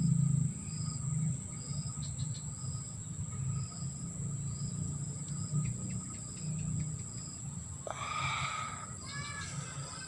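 A thin, high bird note repeated at an even pace, about three notes every two seconds, over a low rumble. A brief noisy burst comes near the end.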